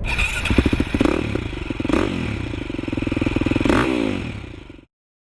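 A Yamaha TTR 230 dirt bike's single-cylinder four-stroke engine running and being revved a few times. It cuts off suddenly near the end.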